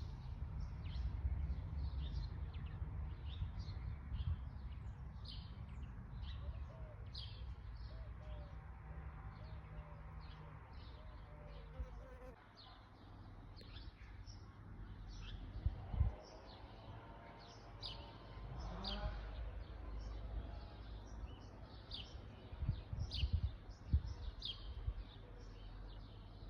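Small birds chirping over and over, short high calls in quick succession, over a low hum and rumble. A few dull knocks come about two-thirds of the way in and near the end.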